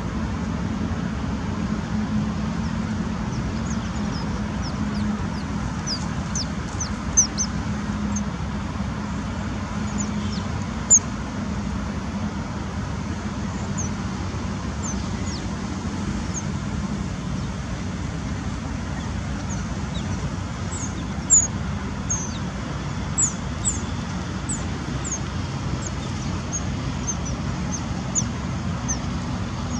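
Smooth-coated otters chirping: short, high, falling chirps scattered through, a few of them loud and more frequent in the second half, over a steady low rumble of traffic.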